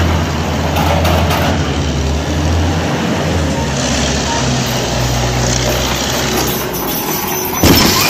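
Diesel engines of a Tata road roller and a Komatsu excavator running with a steady low hum, with a sudden louder burst near the end.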